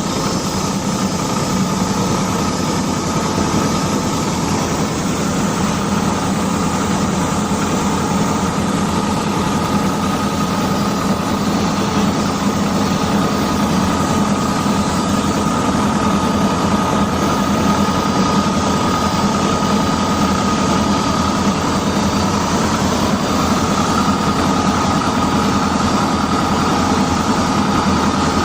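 Metal-cutting machine running, a steady mechanical drone with a constant high whine that doesn't let up.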